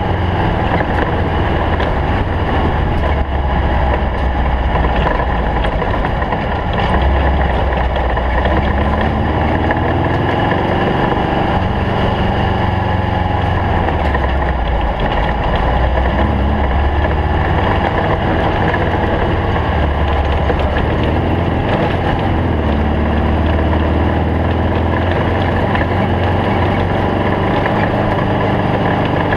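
Engine of a stock-class Volkswagen Bug desert race car running hard, its revs rising and falling over and over, over a steady rushing noise.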